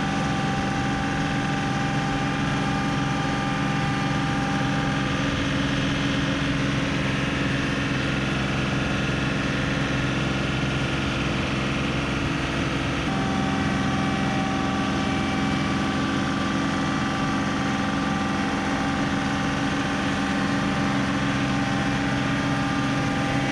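John Deere compact tractor's diesel engine running steadily. Its note shifts slightly about halfway through.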